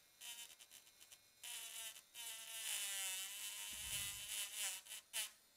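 Small motor of a Mechanic IRX6 PRO cordless electric grinding/polishing pen whining: several short bursts, then about three seconds of steadier running with the pitch dipping slightly midway, then a few more short bursts near the end.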